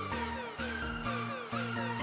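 Electronic background music with a steady bass beat and a synth melody.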